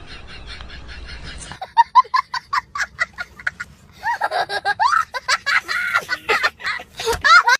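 Laughter in rapid short bursts that rise and fall in pitch, starting about one and a half seconds in and growing fuller about four seconds in.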